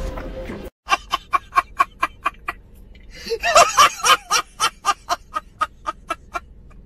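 A man laughing hysterically in a rapid run of high 'ha-ha' bursts, about four a second, loudest in the middle and thinning out toward the end.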